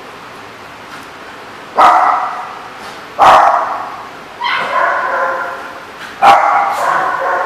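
A dog barking: four loud barks starting about two seconds in, each ringing on in an echoing hard-walled room.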